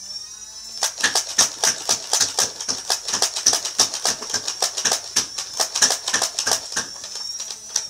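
Nerf Strife flywheel blaster firing an 18-dart clip in rapid semi-automatic shots. The flywheel motors spin up into a high whine, a quick run of sharp clicks follows at about three to four a second, and the whine winds down near the end as the clip empties.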